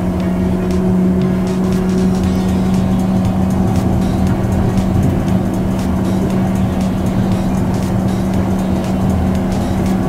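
Yokohama Seaside Line's automated rubber-tyred train cruising along its concrete guideway, heard from inside the front car: a steady low motor hum over the rumble of the tyres.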